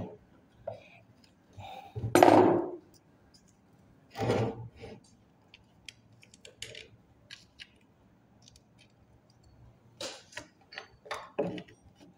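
Metal hand tools and starter-motor parts being handled: scattered clinks, clacks and scrapes, the loudest about two seconds in, with clusters of sharp clicks toward the end.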